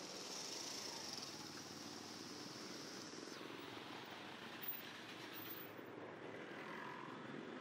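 Faint street ambience: a low, steady hum of distant traffic, with a high, steady buzz that stops about three seconds in. A single short knock comes a little after the middle.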